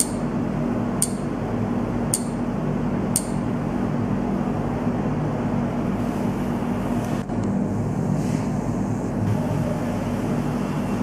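A steady low hum with hiss throughout. Over it, four sharp ticks, about a second apart, come in the first three seconds as a finger types on a tablet's touchscreen keyboard.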